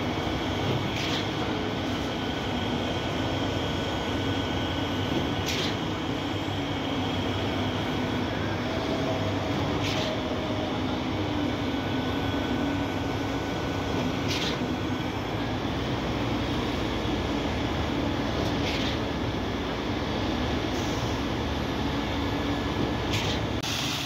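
Truck-mounted concrete boom pump running steadily under load, its diesel engine droning, with a short knock about every four and a half seconds as the pump switches stroke.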